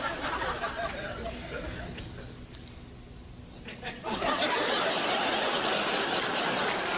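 Studio audience: scattered chuckles fading into a lull, then a little past four seconds in a sudden burst of loud, sustained laughter.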